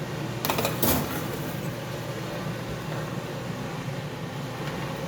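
Steady hum of a kitchen appliance's fan, with a short clatter ending in a sharper knock about a second in.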